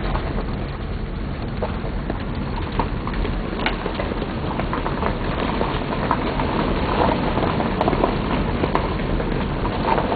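Car driving along a road, heard from inside the cabin: steady tyre and road rumble with scattered small ticks and crackles.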